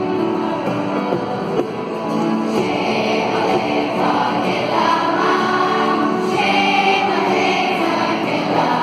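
Massed choir of children and adults singing an Irish-language song, sustained sung notes from many voices together.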